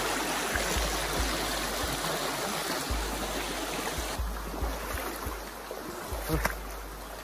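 Stream water rushing in a steady hiss, with low bumps on the microphone; about four seconds in the rush becomes quieter and duller.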